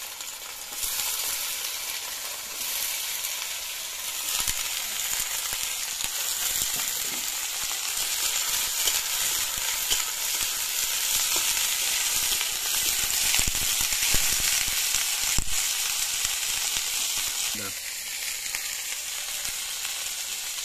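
Cauliflower florets sizzling as they fry in hot oil in a kadai, the sizzle rising about a second in as more florets go into the pan. A metal spatula stirs them, with occasional knocks against the pan.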